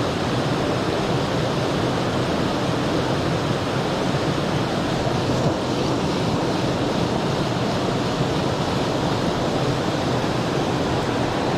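Mountain stream flowing, a steady, even rush of water with no breaks.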